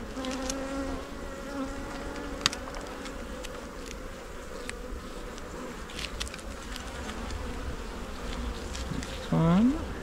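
Honey bees buzzing steadily around an open hive, with a few faint clicks as wooden frames are handled. A short, louder rising sound comes near the end.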